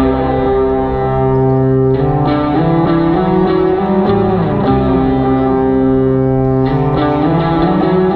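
Electric guitar playing sustained, overlapping notes, with slow slides between pitches at a few points.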